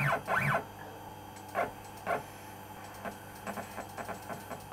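DIY CNC router's stepper motors making short jog moves back and forth to take up and measure backlash against a dial indicator. Each move is a brief whine that rises and falls in pitch: two in the first half-second, two more about 1.6 and 2.1 seconds in, then a few faint ticks.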